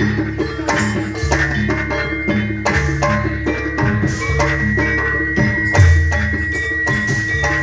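Live jaranan gamelan music: struck pitched percussion and drums playing a steady rhythm with deep low notes underneath, and a long held high note through the second half.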